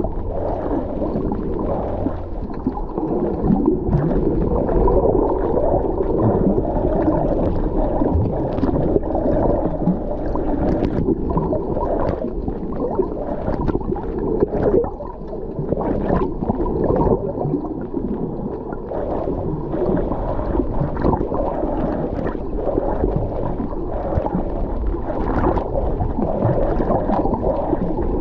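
Muffled underwater noise picked up by a submerged camera: water sloshing and gurgling past the housing, with many scattered short clicks and crackles.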